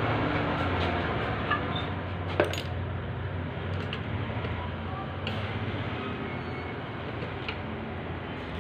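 A steady low hum in the background, with a few light metallic clicks as a screwdriver is handled over a copier's fuser unit.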